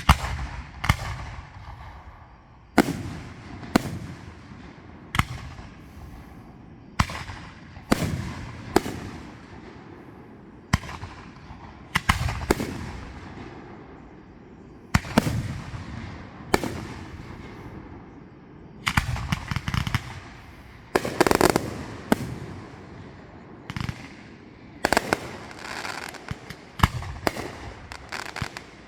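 Aerial fireworks bursting: a string of sharp bangs every second or so, each followed by an echo that dies away, with quicker clustered crackling bangs about two thirds of the way through and near the end.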